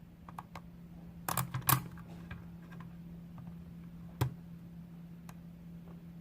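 Small plastic clicks and taps as pliers squeeze the tabs of a dial head to release it. The loudest clicks come in a quick cluster about a second and a half in, with another sharp click about four seconds in, over a steady low hum.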